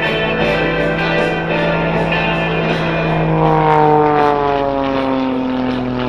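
Pitts S2S aerobatic biplane's piston engine and propeller droning in flight, the pitch falling steadily from about three seconds in. Music with a steady beat plays over it.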